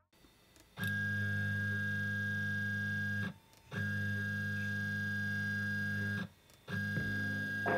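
Elegoo Neptune 2S 3D printer's Z-axis stepper motors driving the gantry in three runs of about two and a half seconds, with short pauses between: a steady low hum with a thin high whine over it. The printer is standing without its dampening foam, so the low hum is vibration it passes into the table.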